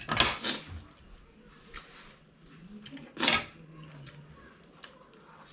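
A man eating very spicy noodles blows out hard twice through pursed lips against the heat, with a few light clicks of a fork and spoon on a plate between the breaths.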